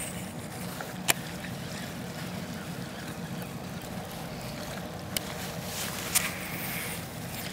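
Boat engine idling steadily under a fishing cast: sharp clicks about a second in and twice more near five and six seconds, the last with a brief swish as the rod is cast.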